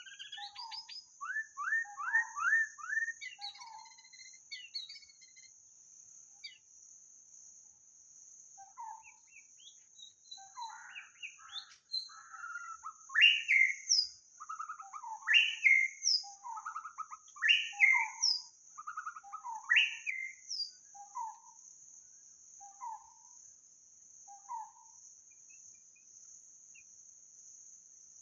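White-rumped shama singing: varied whistled and chirping phrases, with a run of four loud repeated phrases about two seconds apart in the middle, then softer notes trailing off. A steady high insect hum runs underneath.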